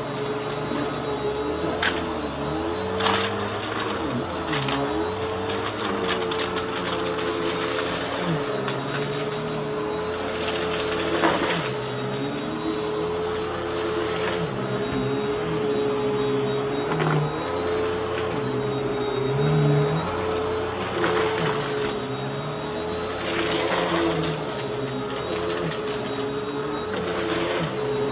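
Bagless upright vacuum cleaner running on a shag rug: a steady motor whine, with a lower airflow tone that rises and falls with each push and pull stroke. Occasional sharp clicks and crunches come from debris being sucked up through the machine.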